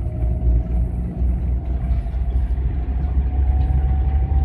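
Cab noise of a GAZelle van driving at road speed: a steady low engine and road rumble, with a thin whine that rises slowly in pitch.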